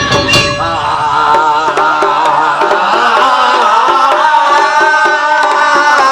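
Live music from a Japanese taiko drum band: heavy drumming that drops out less than a second in, leaving a wavering melodic line over a steady repeating figure.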